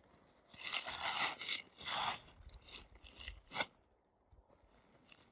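Crunching of packed snow and rustling of a plastic tarp as a person steps over and kneels down beside a backpack, a run of crunches that stops almost four seconds in.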